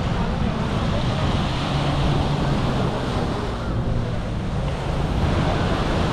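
Surf washing onto the beach, with wind buffeting the microphone and a low, steady drone underneath.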